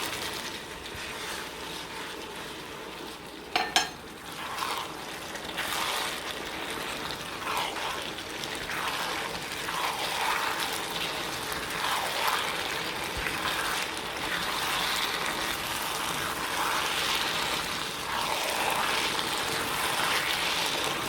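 Sweet and sour sauce bubbling and simmering in the pan as it thickens with cornstarch slurry. A couple of sharp clinks of a utensil against the pan about four seconds in.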